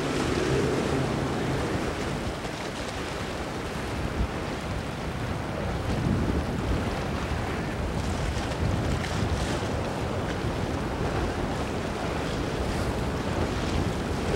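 Wind buffeting the microphone over choppy, breaking inlet water, a steady rushing rumble. A boat's outboard engine runs low underneath as it pushes through the chop.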